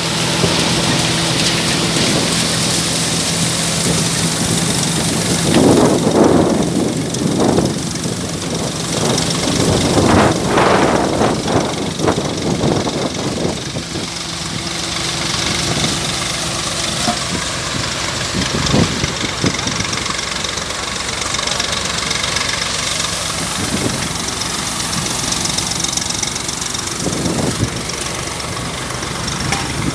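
Multi-crop thresher running in the field: a steady engine hum under a dense rushing noise of crop being threshed and chaff blown out. Louder rushing bursts come about six and ten seconds in.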